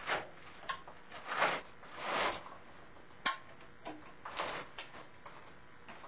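A Bosch CIS mechanical fuel injector and its rubber seal being pushed back down into its port on the engine's intake, giving several short rubbing scrapes and one sharp click a little past three seconds in.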